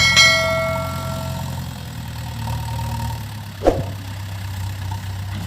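An engine idling with a steady low hum. Right at the start a ringing strike sounds and fades over about a second and a half, and a short sharp sound comes about three and a half seconds in.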